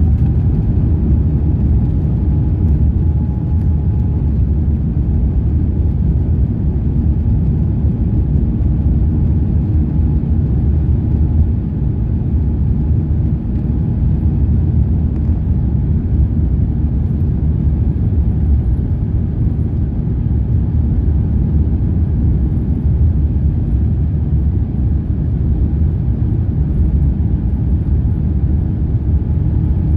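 Steady low rumble of an Airbus A350-900's Rolls-Royce Trent XWB engines and airflow, heard inside the passenger cabin.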